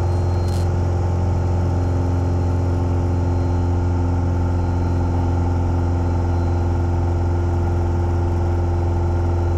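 Single piston engine and propeller of a light aircraft running steadily in flight, a constant low drone heard from inside the cabin.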